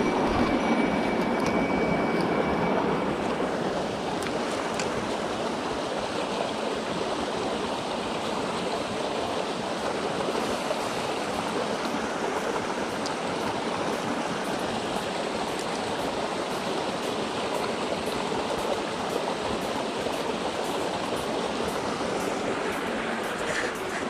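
Small mountain stream running over rocks and a low cascade: a steady rush of water, a little louder in the first few seconds.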